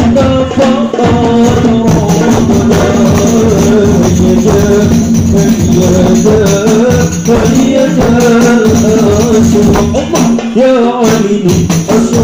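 Sholawat singing by a man's voice over fast hand-played darbuka drumming, both amplified through microphones. The drum is a new Emin darbuka.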